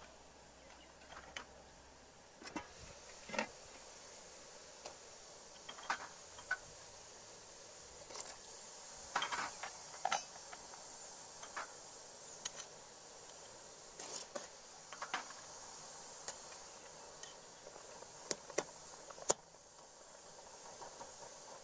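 Aluminium cooking pot, lid and metal ladle clinking: scattered light knocks about a second apart, the sharpest near the end, over a steady faint hiss.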